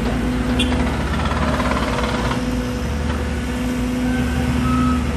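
An excavator's diesel engine running with a steady low drone, close by.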